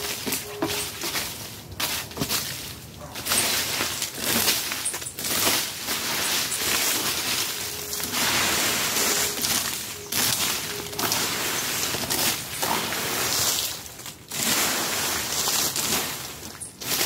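Orange plastic fan rake scraping over dirt and sweeping dry leaves in repeated, irregular strokes, the leaves rustling with each pull.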